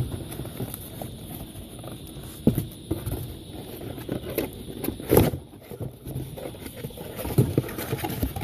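Handling noise as a bike helmet is unpacked: plastic wrapping rustling and being pulled off, with a couple of sharper knocks about two and a half and five seconds in.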